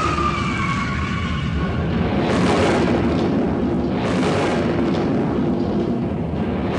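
Cartoon sound effects of flowing lava and a volcanic eruption: a continuous low rumble with a few louder rushing blasts, over background music.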